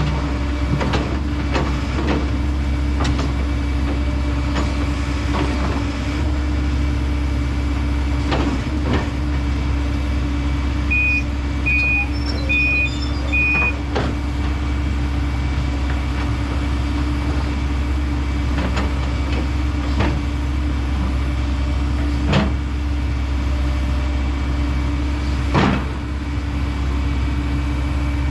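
Diesel engine of a Kobelco SK210 excavator running steadily under work. A backup alarm beeps four times near the middle, and a couple of sharp knocks come near the end.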